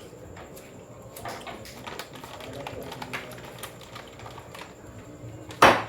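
Pool balls: faint scattered clicks, then a loud sharp clack of a shot near the end.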